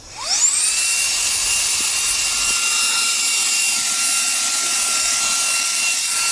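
Reikiya HV-C11 cordless handheld vacuum switching on: its motor spins up with a quick rising whine over about half a second, then runs steadily with a high whine over a rush of air.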